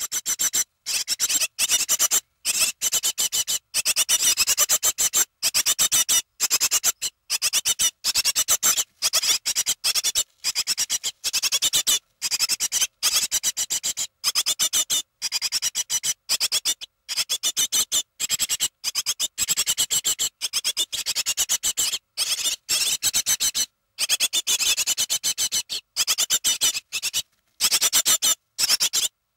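Nestling birds calling in the nest, a dense chorus of high-pitched squeaking. The sound cuts out for brief moments again and again.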